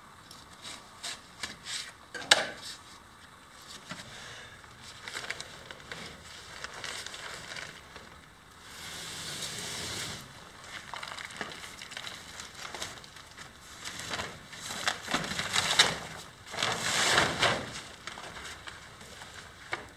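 Plastic sheeting crinkling and rustling as a freshly cast aggregate slab is tipped up out of its plastic-lined mould and stood on edge, with scattered knocks and one sharp knock about two seconds in.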